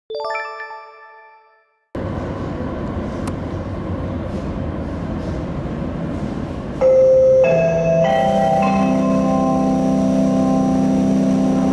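A short marimba-like jingle plays and dies away, then the rumble of an 81-760 Oka metro train approaching through the tunnel. From about seven seconds in it grows louder, with a set of steady whining electric tones that change pitch in steps as the train comes into the station.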